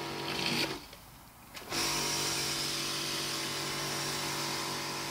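Kärcher electric pressure washer running, its motor and pump humming steadily with the hiss of water from the surface cleaner on concrete. The motor stops for about a second shortly after the start, as the trigger is let go, then starts again and runs steadily.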